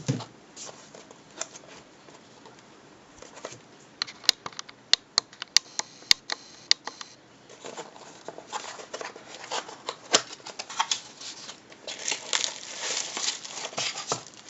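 A boxed speaker being unpacked by hand: a quick run of sharp clicks and taps about four seconds in, then packaging rustling and crinkling more densely toward the end.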